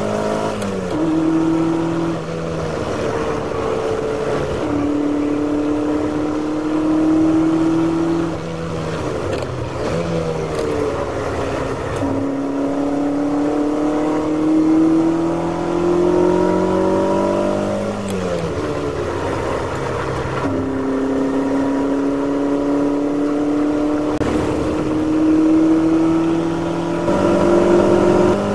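Classic Ferrari V8 race car engine heard from inside the cockpit, revving hard under acceleration and climbing in pitch through the gears. The note drops sharply with each gear change and twice when the driver lifts and brakes for corners, then pulls up again with an upshift near the end.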